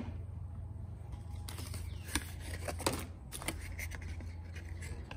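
Paper instruction leaflet rustling and crackling as it is handled and turned over, with a few sharper crackles, over a steady low hum.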